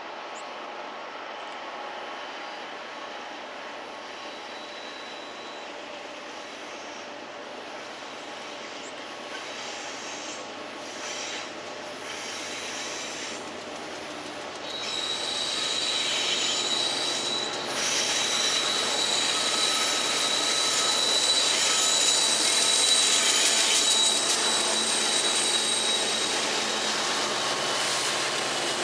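Union Pacific freight train of loaded soda ash covered hoppers approaching on a curve and passing close. About halfway through, the wheels start squealing on the curve in a steady high tone, and the train grows louder as the locomotives draw near.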